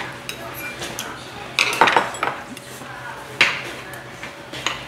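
Stainless-steel spoons clinking and scraping against a stainless-steel rice bowl and earthenware soup bowls (ttukbaegi), as rice is scooped into the soup and stirred. The clinks are irregular, with a loud cluster about two seconds in and a sharp single clink about three and a half seconds in.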